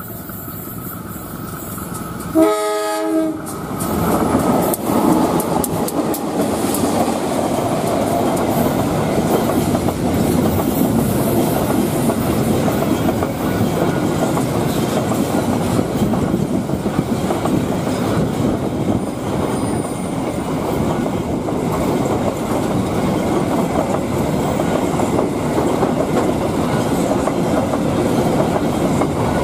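A diesel locomotive's horn gives one short blast about two and a half seconds in. Then the locomotive and a long container freight train pass close by: steady wheel-on-rail rumble with the clickety-clack of the flat wagons over the rail joints.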